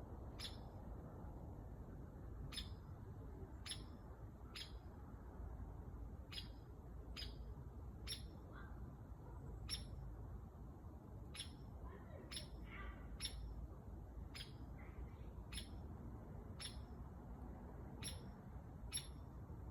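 A woodpecker giving short, sharp, high single call notes, about sixteen of them spaced roughly one to two seconds apart, not drumming. A few fainter chirps come in between them about two-thirds of the way through.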